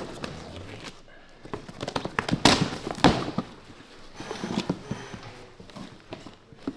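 A large cardboard box being opened by hand: packing tape ripping and cardboard flaps and packing crackling, in a run of irregular sharp cracks, loudest about two and a half and three seconds in.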